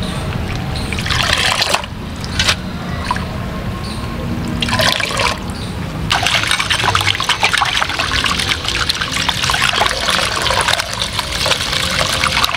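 Hands swishing chopped bottle-gourd leaves through water in a metal bowl, splashing and trickling in uneven spells. From about six seconds in, the water sound becomes steady and continuous as water pours into the bowl.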